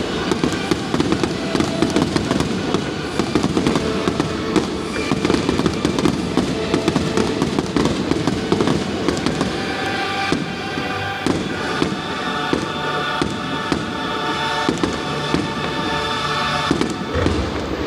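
A fireworks display going off in a rapid, continuous barrage of booms and crackling bursts, with music playing alongside that grows clearer in the second half.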